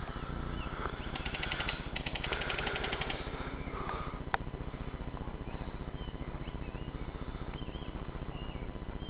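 Airsoft gun firing two short full-auto bursts of rapid, evenly spaced shots, then a single sharp crack about four seconds in, over a steady low rumble. Short bird chirps follow in the second half.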